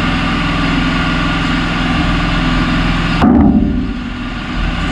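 An engine running steadily at idle, with one loud bump about three seconds in.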